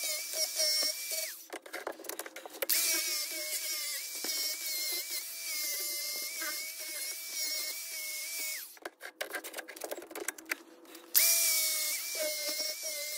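DeWalt angle grinder running with a steady whine as it grinds the surface of an aluminium bronze casting. It stops twice, first for about a second and later for about two and a half seconds, with scattered clicks in the gaps, then starts again abruptly.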